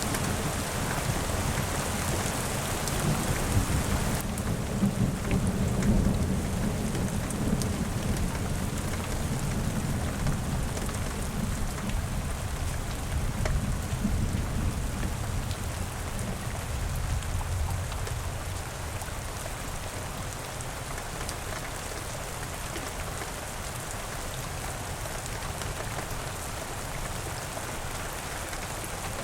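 Steady rain falling, with a long low rumble of thunder that swells in the first half and fades away after the middle.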